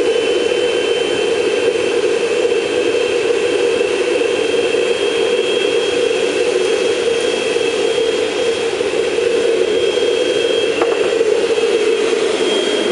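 A vacuum cleaner motor running steadily as the air blower of a homemade gas forge, giving a steady rush of forced air and burning gas with a thin high whine over it.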